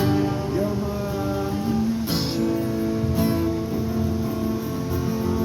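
Acoustic guitar strummed in a steady rhythm, its chords changing every second or so.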